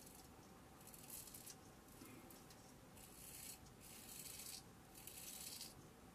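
Ming Shi 2000S adjustable double-edge safety razor scraping through lathered stubble: a series of about five short, faint strokes, each about half a second long.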